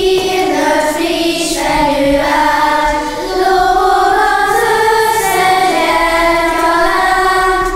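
A group of children singing together, holding long notes.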